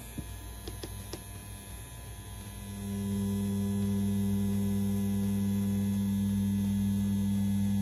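CNC P6 rotary tattoo pen machine starts up about three seconds in and runs with a steady electric hum. It is running at 7.5 volts, driving a round shader needle cartridge.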